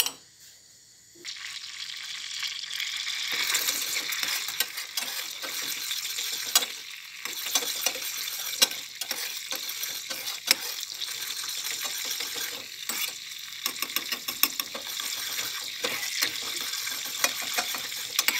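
Butter sizzling as it melts and heats toward browning in a small stainless steel saucepan, stirred with a metal spoon that clicks and scrapes against the pan. The sizzle starts about a second in and grows louder a couple of seconds later.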